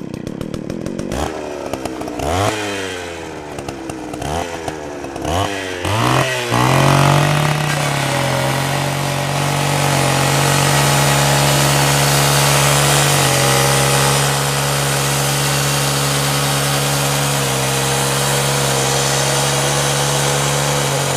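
Chainsaw engine revving up and down in repeated sweeps for the first few seconds, then running steadily at high speed as one unbroken drone.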